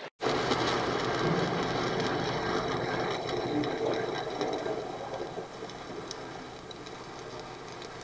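A 7018 stick-welding electrode arc burning steadily on a steel plate, a dense crackling hiss, as a fill stringer pass is run in the horizontal (2G) position. It starts abruptly just after the beginning and eases slightly after about five seconds.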